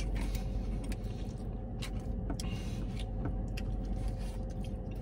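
Eating sounds: a plastic fork scraping and clicking in a foam takeout container of loaded fries, with chewing. Underneath is the steady low hum of the car cabin.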